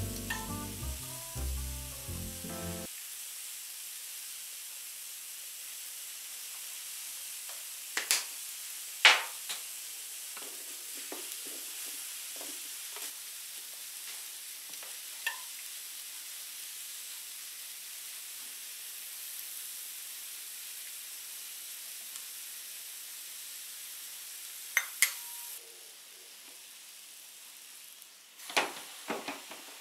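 Sliced peppers, mushrooms and onions sizzling steadily on the hot plates of an electric contact grill, with scattered sharp clicks and knocks of shakers and utensils. A louder clatter near the end as the grill lid is brought down.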